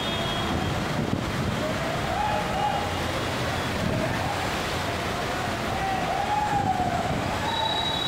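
Steady rush of heavy rain and floodwater, with cars driving through the flooded road and pushing the water aside. A faint wavering tone rises and falls through the middle.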